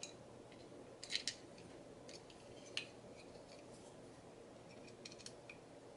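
Faint clicks and scrapes of a small screwdriver driving a screw through a 50 mm plastic blower fan into a printed plastic fan shroud. There is a quick pair of clicks about a second in, a sharper single click a little later, and a few soft ones near the end.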